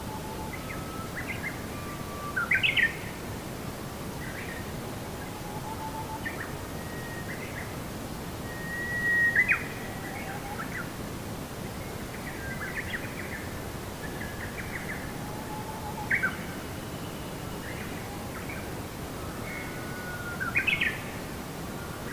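Small songbirds chirping and calling in short phrases, with louder calls about every five to seven seconds, over a steady hiss of ambient noise.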